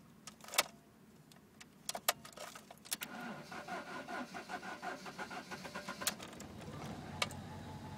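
A few sharp clicks of the key and ignition, then a car's starter motor cranking the engine in a quick rhythmic pulse for about four seconds; near the end the engine catches and settles into a steady idle.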